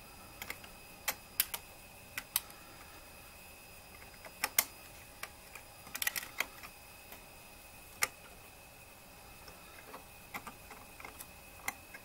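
Irregular small clicks and taps of metal and plastic as fingers work the CPU socket's retention lever and frame on a server motherboard, about a dozen in all with a quick cluster around the middle.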